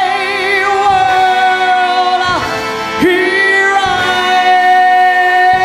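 Female singer belting long held notes with vibrato over a live band playing a show tune. The first note breaks off about two seconds in, and after a short slide she holds another long note.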